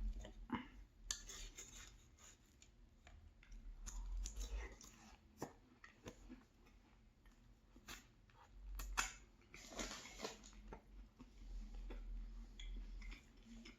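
Quiet clicks and scrapes of a utensil and other tableware being handled at a plate, with a few short hissy bursts.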